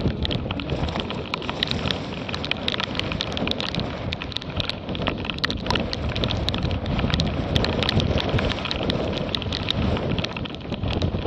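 Wind noise and water rushing along the hulls of a Dart 16 catamaran sailing fast through chop, with spray and drops striking the camera in many small sharp ticks.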